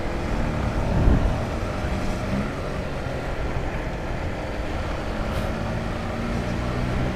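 Honda CBR150R motorcycle's single-cylinder engine running at a steady cruise while riding, with low road and wind rumble; a brief low swell about a second in.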